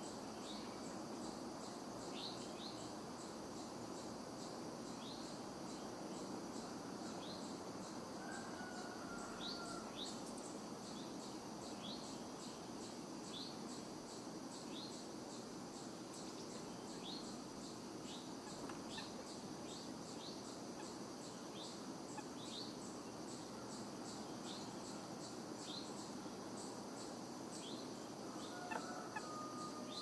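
Backyard woodland ambience: a bird repeats a short, high, downslurred call about once a second over a steady, pulsing insect trill. A lower whistled note sounds twice, once about a third of the way in and once near the end.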